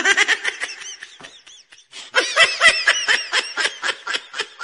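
A person laughing in quick, high-pitched bursts of about five a second, in two bouts with a short pause about two seconds in.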